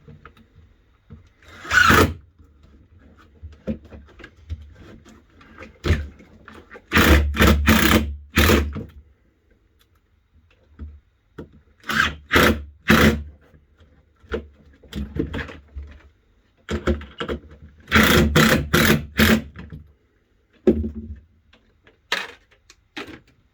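Shelf parts being fastened: groups of sharp knocks from a tool working on wood, several a second in clusters of three to six, with pauses and light handling noise between.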